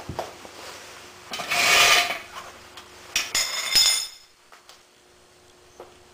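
Breaker bar and socket being handled and pulled off the crankshaft pulley bolt: a loud scraping rustle about one and a half seconds in, then sharp metal clinks with a brief metallic ring around three to four seconds in.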